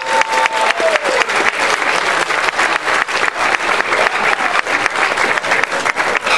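Audience applauding: dense, steady hand-clapping.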